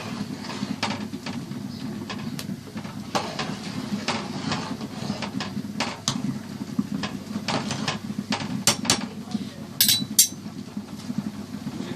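A spoon stirring thick rice porridge in a cooking pot, scraping and knocking irregularly against the pot, with a few sharper clinks about ten seconds in. A steady low hum runs underneath.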